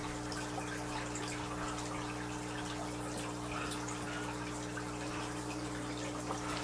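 Aquarium filter running: a steady electric hum with water trickling and dripping into the tank.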